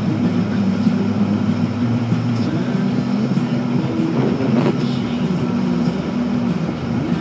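Car driving along a snow-covered road, heard from inside the cabin: a steady engine hum and tyre noise.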